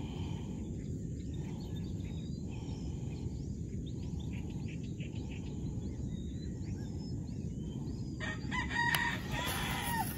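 Small birds chirping over a steady low rumble of outdoor noise; about eight seconds in, a rooster crows loudly for around two seconds.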